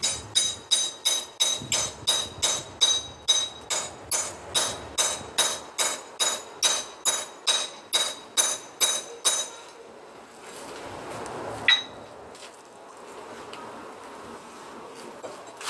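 Hand hammer striking a chisel against a concrete block, about three steady blows a second with a ringing metallic edge, stopping about two-thirds of the way through. A single sharp clink follows a couple of seconds later.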